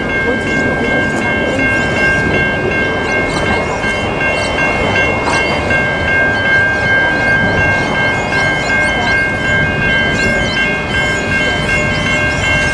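Railway level crossing warning bells ringing in a steady repeating pattern, about two strokes a second, over a loud continuous rumble and hiss.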